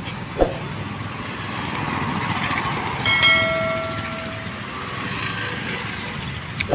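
A metallic clang about three seconds in that rings on for about a second, from steel struck during a roadside truck tyre change, over a steady rumble of highway traffic. A short knock comes about half a second in.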